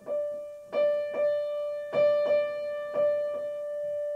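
Piano playing one high note struck about seven times in an uneven rhythm, each note left ringing into the next, the last held.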